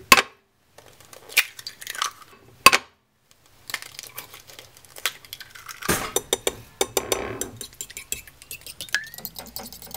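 Eggs cracked against the rim of a ceramic bowl, a few sharp separate knocks, then a metal fork beating the eggs in the bowl: a fast, continuous clatter of metal on ceramic.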